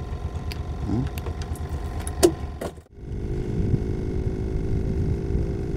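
A boat engine running steadily, a low rumble. The sound drops out for an instant about halfway through, then carries on as a steadier hum.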